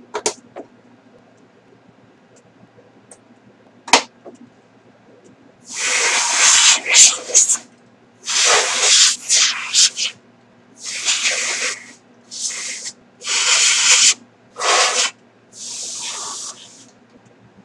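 Two sharp clicks, then a run of about ten short, loud hissing spray bursts.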